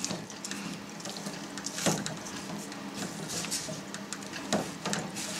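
Soft, scattered clicks and small wet splashes as cheese curd is scooped from warm whey with a plastic slotted skimmer and by hand and pressed into a cheesecloth-lined form, the clearest about two seconds in, over a faint steady hum.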